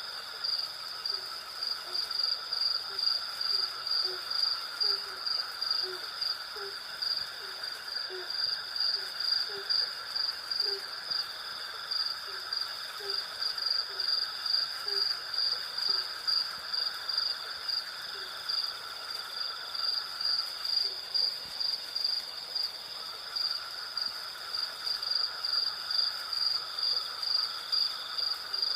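Night chorus of crickets and cicadas: a high trill pulsing about three times a second over a steadier buzz, with a lower hum that drops out for a couple of seconds about two-thirds of the way in. Short, low calls repeat through the first two-thirds.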